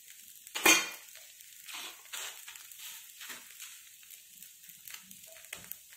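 Onion rava dosa sizzling faintly on a hot cast-iron tawa. There is one sharp knock about a second in, then a few short scrapes of the spatula against the pan.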